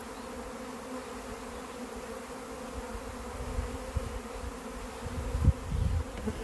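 Honey bee swarm buzzing: a steady, dense hum of many bees in flight. Low rumbling thumps come in during the second half, loudest about five and a half seconds in.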